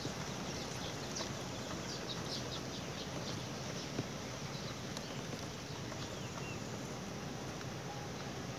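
Faint, short, high bird chirps, clustered in the first half, over a steady rushing background hiss.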